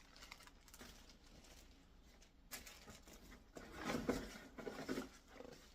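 Rustling and handling of packaging and plastic parts while a cordless vacuum's accessories are unpacked, louder for a second or so in the second half.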